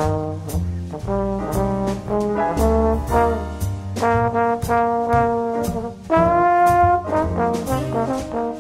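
Instrumental background music: a melody of sustained notes over a steady beat.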